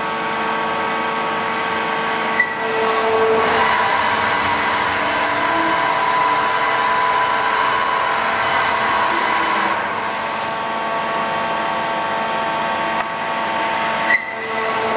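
Hartford CNC machining centre milling a large casting die: a steady whine of several tones from the spindle and cut over a hiss. It grows louder a few seconds in and eases off again later, with a sharp click near the start and another near the end.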